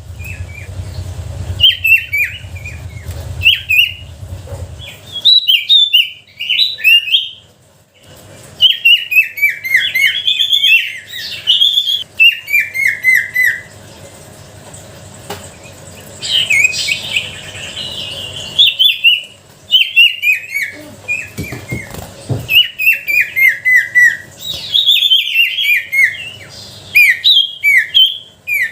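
A sirtu songbird singing in quick series of sharp chirps that slide downward in pitch, several bursts a few seconds long with short pauses between. This is lure song (pancingan) used to get a reluctant bird to start singing.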